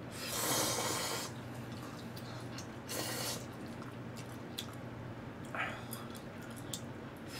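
Slurping ramen noodles: a slurp of about a second at the start, then shorter slurps around three and six seconds in.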